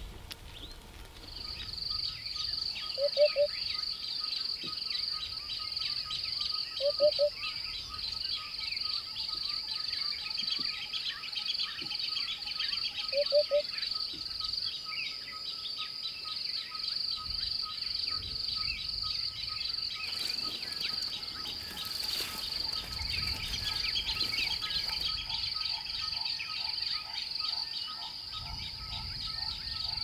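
Steady, fast-pulsing chorus of crickets or other insects. Over it come soft, low two- or three-note 'hoop-hoop' calls of an African hoopoe, three times a few seconds apart in the first half.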